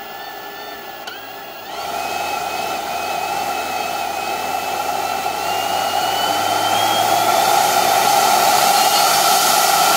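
EGO 650 CFM leaf blower's brushless fan motor, run by a retrofit BLDC controller, speeding up as its speed knob is turned. It runs low at first, jumps louder about two seconds in, then its whine climbs steadily in pitch as the rush of air grows.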